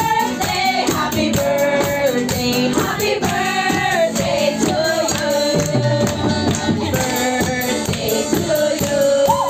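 A group of women singing a Tagalog worship song into microphones, backed by a live band with drums and bass. Hands clap along to a steady beat.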